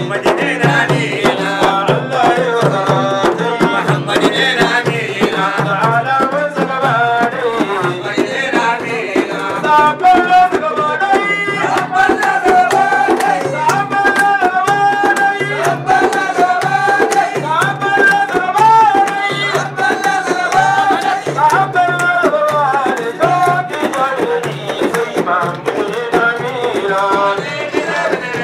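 Madeeh, a Sufi praise song: voices singing a melody over large hand-held frame drums beating a steady, driving rhythm.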